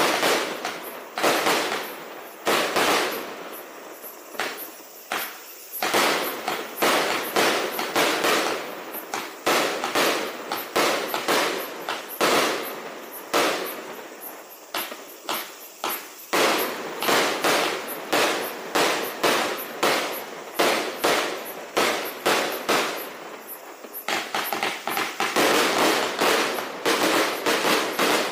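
135-shot consumer firework cake firing shot after shot: a rapid, steady string of sharp bangs from shells launching and bursting, about two a second, with a continuous hiss between them.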